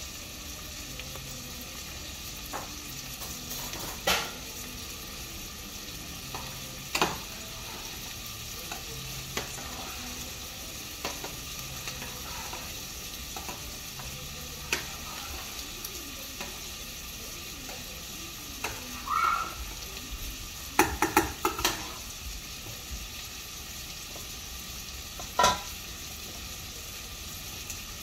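Onions frying in a steel pot, a steady sizzling hiss, with occasional knocks and scrapes of a spoon against the pots, several in quick succession about three-quarters of the way through.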